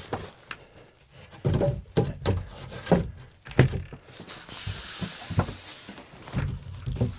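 Irregular knocks and thuds of wooden cabin wall panels being handled and set into place, with a short hiss about halfway through.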